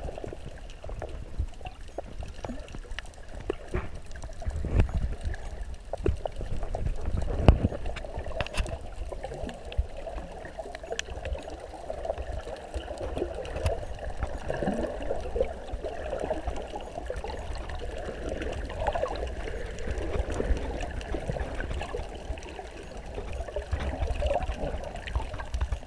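Muffled underwater sound heard through a GoPro's waterproof housing: water moving and bubbling around the camera with a low rumble, and a few sharp knocks.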